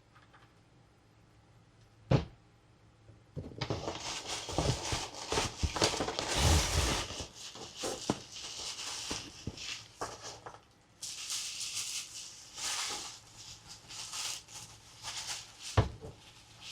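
Toy packaging being handled and opened: crinkling, rustling plastic with many small clicks and rattles in two long stretches, a knock about two seconds in and another near the end.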